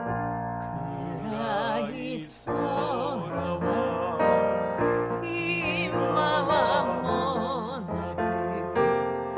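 A song sung in Japanese with piano accompaniment: after piano chords, a solo voice with wide, opera-like vibrato comes in about a second in and sings a lyric line.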